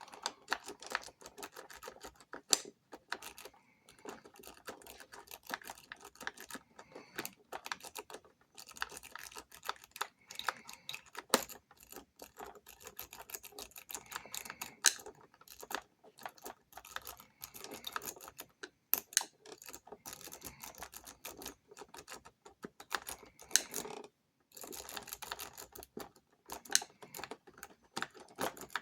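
Lock-pick rake worked rapidly in and out of a Schlage SecureKey deadbolt's keyway, a dense run of small metallic clicks and rattles as it scrapes over the pin tumblers. It pauses briefly twice, and a few louder clicks stand out.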